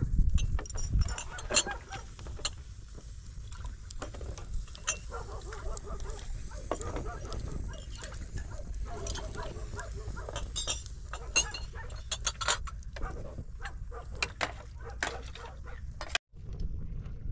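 Wood fire crackling under a soot-blackened kettle, with wind rumbling on the microphone and livestock calling in the background. Glasses clink now and then.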